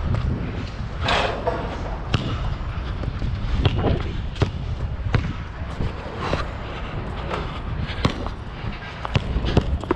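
Nike True Grip basketball bouncing, a string of sharp impacts at uneven intervals of roughly half a second to a second and a half.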